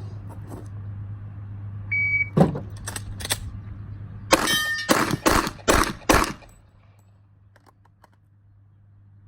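Shot timer beeps about two seconds in, followed by a few knocks as the gun is picked up, loaded and racked. Then five gunshots in under two seconds, the first with steel ringing after it.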